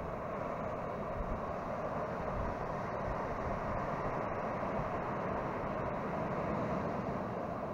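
Steady, even rush of surf breaking along a sand beach, with no distinct individual sounds.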